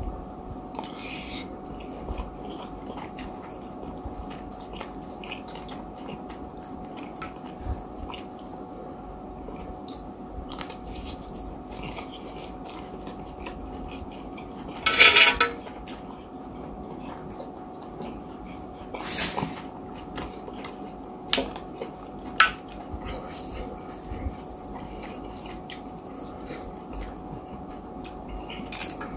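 Close-miked eating: chewing and mouth sounds with a plastic spoon clicking and scraping on a plate, over a faint steady hum. Two louder clattering noises stand out, about halfway through and again a few seconds later.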